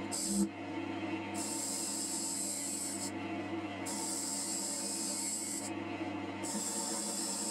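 JIB W0903X wood lathe running with a steady hum while a jig-held cutter shaves the outside of the spinning wooden bowl blank. The cutting is a hissing scrape in passes of one to two seconds with short breaks between them, and there is a short thump about half a second in.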